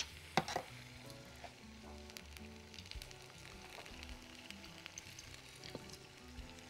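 Spring rolls frying in hot oil: a faint, steady sizzle with scattered small pops.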